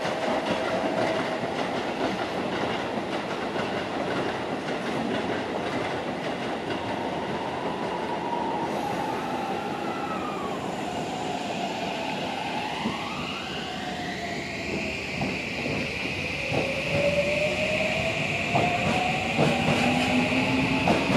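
Electric commuter trains: first the steady rumble of a train running along the far track. Then the electric drive whine of a Toei 5500-series train, its tones gliding in pitch and rising steadily over the last few seconds as it pulls out, with wheels clicking over rail joints.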